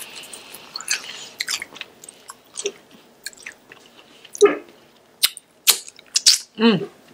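Close-miked chewing and biting of Korean fried chicken, with many sharp clicks and crunches from the mouth. There are two short voiced sounds from the eater, one about midway and one near the end.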